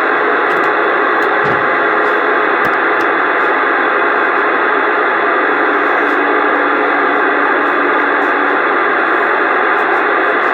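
CB radio speaker playing a steady, loud rush of static from another station keyed up on the channel without talking. The noise starts and cuts off abruptly as the transmission opens and drops.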